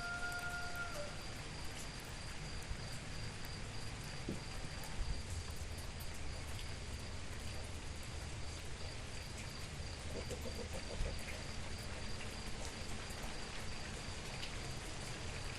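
Steady rain falling, with scattered fine drop ticks, and a continuous high-pitched insect trill over it. A held pitched tone stops about a second in.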